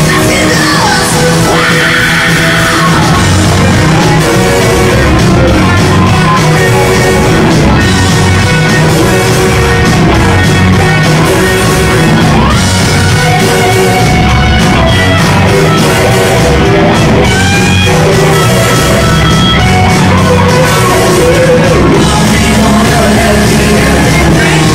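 Live rock band playing loudly, with electric guitars, keyboards and drums under a group of singers.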